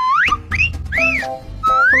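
Playful intro music: a whistle-like tune swooping down and up in pitch about twice a second over a bouncy bass beat.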